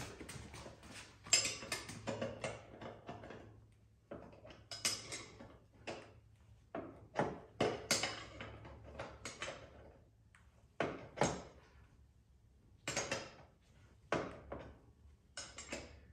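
Irregular metal clicks and clinks of a 3/4-inch wrench being worked on the clamp bolt of a BeadBuster bead breaker mounted on an ATV wheel rim.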